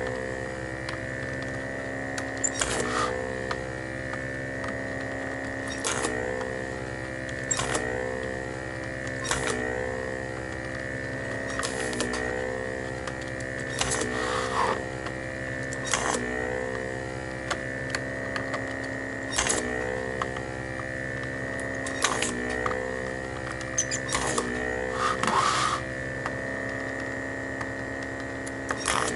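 The vacuum pump of a homemade desoldering iron runs with a steady hum and whine. Every couple of seconds there is a sharp click, and the pump's pitch shifts as suction is drawn through the nozzle on another solder joint.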